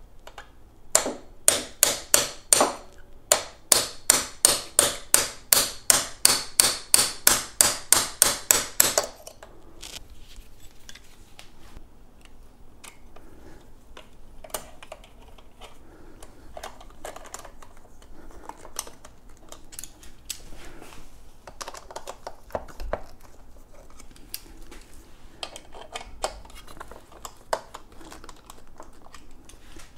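Metal hand tools working the pedal mounting hardware of an electric unicycle: a loud, even run of sharp metallic clicks, about three to four a second, that stops abruptly after some eight seconds. Fainter scattered clicks and handling noise follow.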